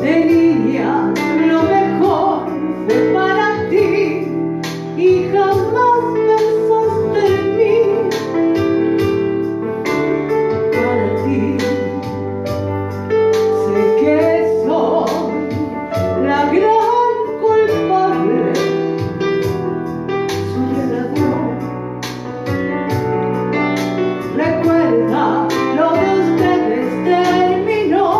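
A woman singing a Spanish-language ballad live into a handheld microphone, with vibrato on held notes, over instrumental backing music.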